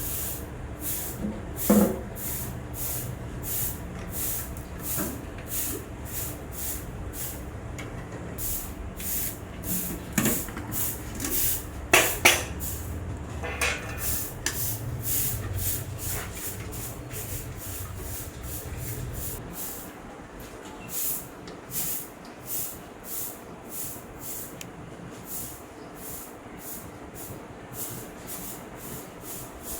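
Workshop machinery running, with a regular hissing beat about one and a half times a second, a low motor hum that cuts off about two-thirds of the way through, and a few sharp knocks in the first half.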